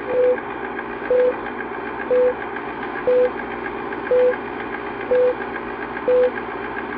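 Film-leader countdown sound effect: a short beep once a second, seven times, over the steady running rattle of a film projector.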